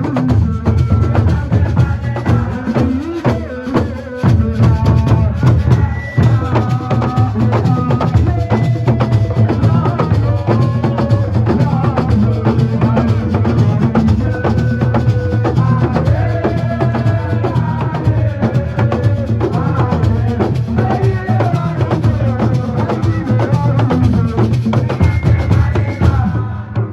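Music with heavy drumming and a melody of held notes. It cuts off shortly before the end.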